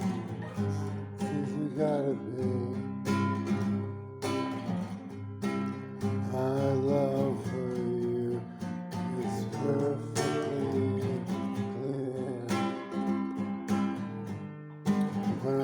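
Music: an acoustic guitar strummed, with a voice singing over it in places.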